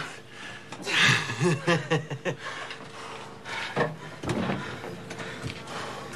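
Wordless human voice sounds, breathing and a short chuckle, after a band has just stopped playing. A few sharp knocks come later.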